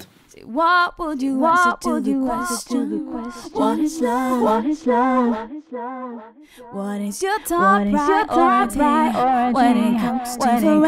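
An a cappella vocal test track played through a tape-style delay plugin, the sung phrases and their echoes wavering in pitch. The tape saturation drive is turned up as it plays.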